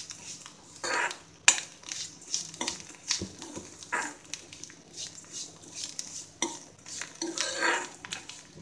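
Metal ladle stirring beaten rice (poha) frying in oil in an iron kadai, scraping and knocking against the pan about once a second, with one sharper knock about one and a half seconds in.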